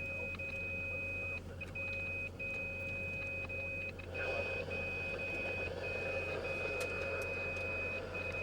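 A steady high-pitched electronic tone, held with brief dropouts, over the running noise inside a moving vehicle; the road noise grows louder about four seconds in.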